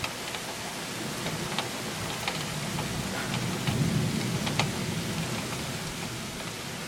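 Heavy thunderstorm rain pouring steadily, with sharp ticks of drops landing close by, and a low rumble of thunder that swells about halfway through.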